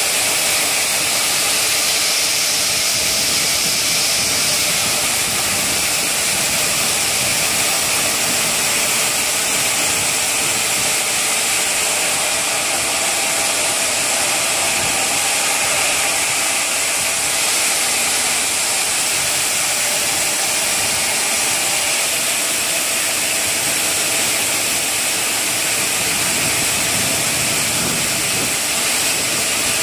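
Granite block-cutting saw running steadily as its blades cut through a block under a cooling water spray. A continuous, even hissing grind, mostly high-pitched, with a faint steady hum beneath.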